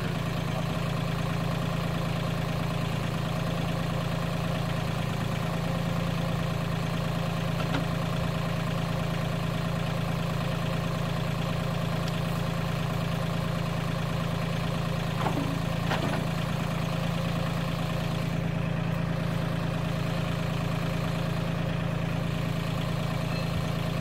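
Mahindra 1626 compact tractor's diesel engine idling steadily, with a faint knock or two about halfway through.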